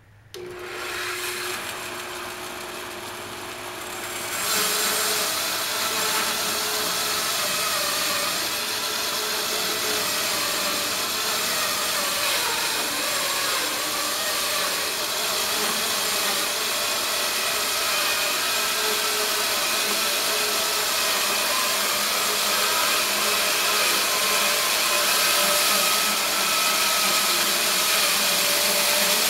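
Homemade bandsaw mill, its 4 HP electric motor driving a 1 1/4-inch band blade on plywood wheels, switched on just after the start and running free for a few seconds. About four seconds in, the blade enters the pine log and the sound turns louder and noisier as it saws steadily through the cut.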